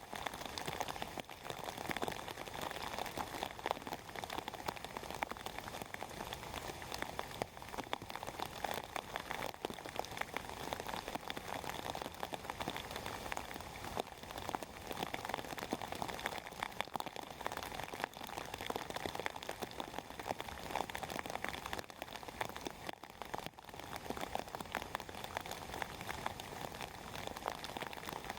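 Steady rain falling: a dense, even patter of countless individual drops striking surfaces.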